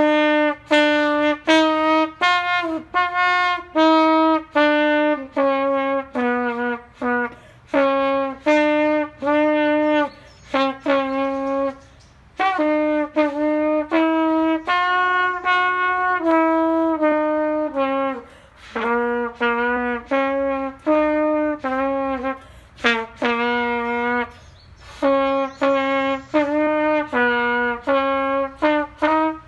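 Trumpet playing a melody of separate, clearly started notes, grouped into phrases with short pauses between them, about twelve, eighteen and twenty-four seconds in.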